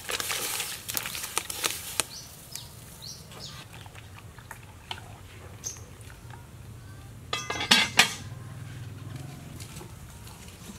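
Raw chicken pieces slide from a woven basket into a pot of boiling broth with a rush of splashing, followed by a metal ladle clinking against the pot as the soup is stirred. About seven seconds in comes a loud clatter of metal on metal as the pot lid is set on.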